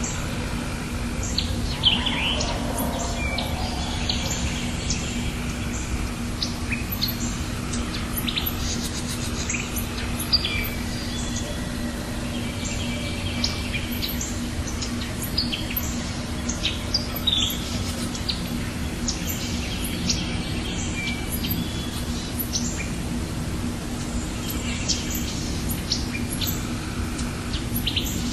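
Several birds chirping and whistling in short, scattered calls, over a steady low hum and background noise.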